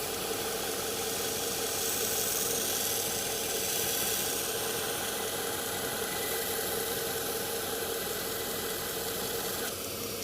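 Belt grinder running with a 120-grit belt while a steel knife blade is held against it, grinding in the swedge: a steady motor hum under an even grinding hiss. The grinding noise drops away near the end, leaving the motor's hum.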